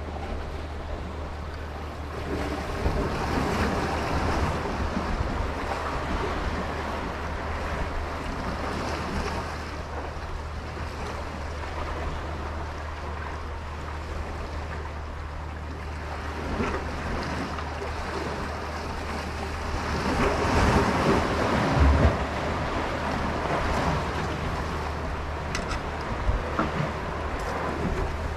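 Sea waves washing, with wind buffeting the microphone, swelling louder twice: about three seconds in and again around twenty seconds in.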